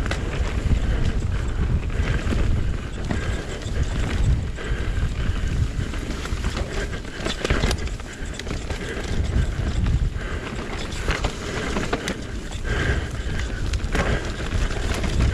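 Wind rushing over a helmet or bike-mounted action camera's microphone as a mountain bike descends a rough enduro trail. A steady low rumble of tyres and bike, broken by frequent sharp knocks and rattles from the bike over rough ground.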